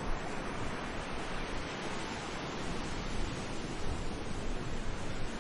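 Sea waves washing steadily on the shore, an even rushing hiss of surf with gentle swells, with some wind noise on the microphone.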